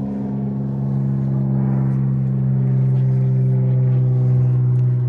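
A steady, low engine hum at an unchanging pitch, getting slightly louder as it goes on, like a motor running at idle.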